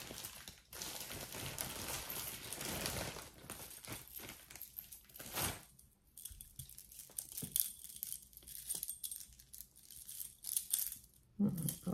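Costume jewelry clinking and jingling as a tangled pile of beaded necklaces, chains and bracelets is picked through by hand, with a stretch of rustling in the first few seconds and a sharper clink about five seconds in.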